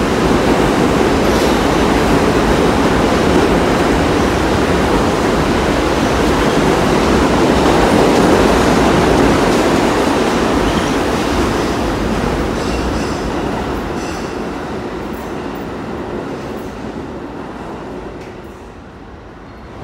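New York City Subway train running past through an underground station, a steady rumble of wheels on rail with some clicking as the last cars go by. The sound fades away over the last several seconds as the train leaves.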